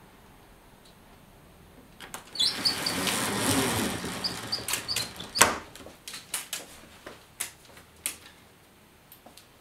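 A window being opened: a rushing scrape for about two seconds, then a run of sharp clicks and knocks, the loudest near the middle, thinning out towards the end.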